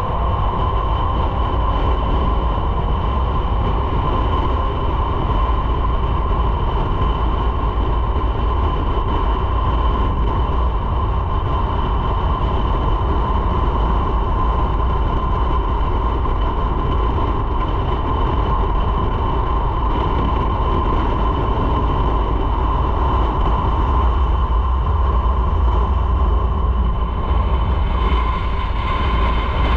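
Motorcycle riding at a steady speed, heard from an onboard microphone: a constant drone of engine, wind and road rumble.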